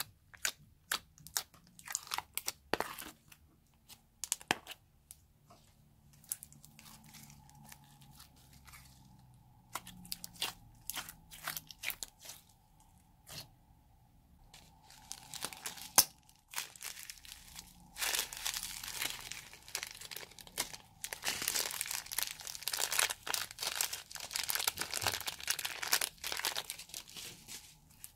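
Thick slime being tipped out, poked and squished, with sticky clicks and pops at first. Later comes a long run of dense crackling and crunching as candy sprinkle beads are added and worked into the slime.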